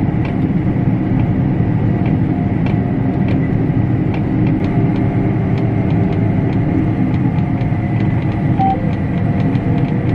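Combine harvester running with its header engaged, cutting a wheat sample: a steady, dense machine drone with a thin high whine and faint regular ticks, louder from the start.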